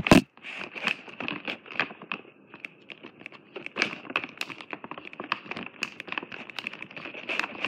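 Close handling noise: a plastic treat bag crinkling and rustling, with irregular clicks and knocks against the phone, and a sharp knock at the very start.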